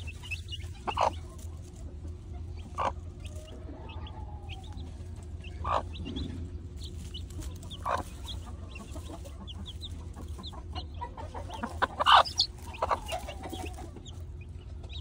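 Broody mother hen giving short clucks every couple of seconds, loudest about twelve seconds in. Her chicks cheep with many small high peeps throughout, over a steady low hum.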